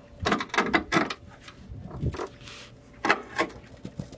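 Pliers gripping and bending a thin sheet-metal fender tab: a series of irregular sharp metal clicks and clanks, bunched about a second in and again near three seconds.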